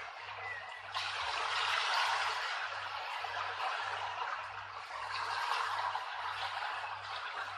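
Steady rushing noise, like running water, with a low hum pulsing about twice a second underneath.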